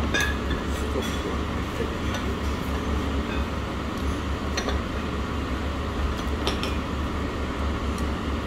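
Steady low hum of dining-room ambience, with a few light clinks of a ceramic spoon and bowls against the stoneware hotpot as food is ladled out.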